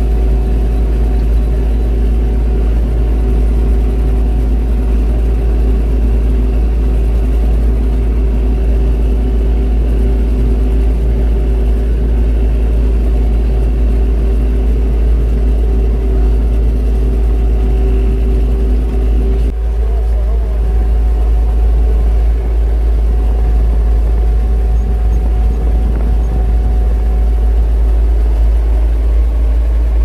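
Tractor diesel engine running steadily, its tone shifting about twenty seconds in.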